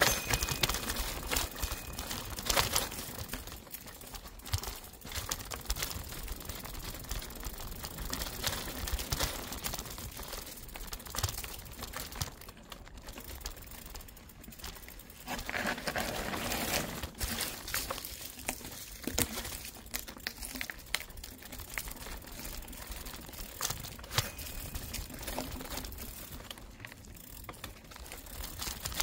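Mountain bike rolling fast down a dirt trail: the tyres crunch over dry leaves and loose soil, with irregular clicks and knocks from the bike over rough ground, louder for a couple of seconds around the middle.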